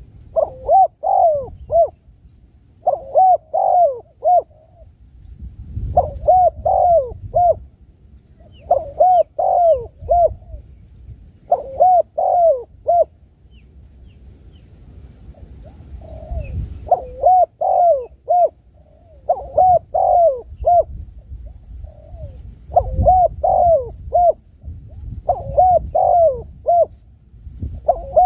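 Spotted dove (tekukur) cooing: a short phrase of several cooing notes, repeated about every two to three seconds, with a longer pause near the middle.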